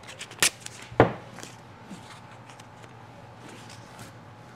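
Two sharp knocks about half a second apart, the second louder with a low thud, as small items are handled and set down on a wooden workbench. Light clicks and rustles of blue painter's tape and small parts being handled follow.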